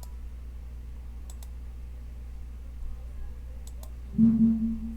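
Computer mouse clicks, two quick double-clicks a couple of seconds apart, over a steady low electrical hum. Near the end comes a short, louder, steady-pitched hum, like a voice.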